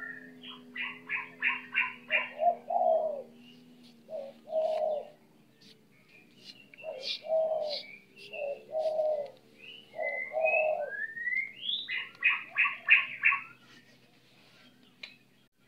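Doves cooing in a series of low, separate notes, with another bird's quick run of rapid chirps near the start and again near the end.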